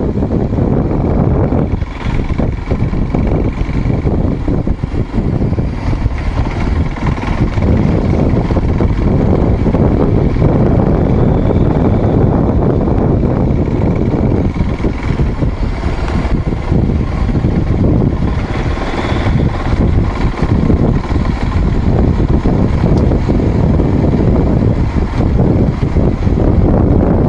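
A vehicle running along a dirt trail: engine and road noise mixed with wind buffeting the microphone, holding steady.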